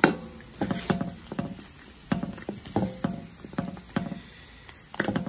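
Metal ladle knocking and scraping against a wok while meat is stirred: a string of irregular clinks, some with a short ringing tone.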